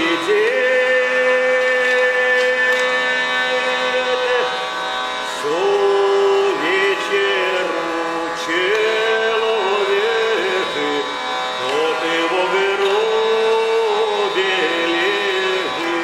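Hurdy-gurdy (wheel lyre) playing a melody over its steady, buzzing drone, with a man's voice singing a Russian spiritual verse along with it.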